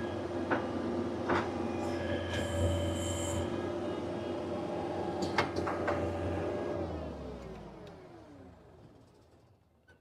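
Skid steer's engine running steadily, with a few sharp metal clanks and a brief high whine, then shut off about seven seconds in, its pitch falling as it winds down to a stop.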